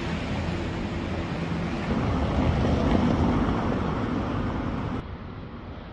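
Low vehicle rumble of street traffic, swelling louder around the middle and then fading, as a car goes by.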